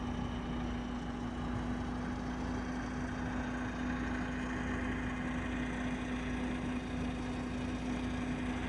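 Engine idling steadily: an even low rumble with one constant hum-like tone that does not change.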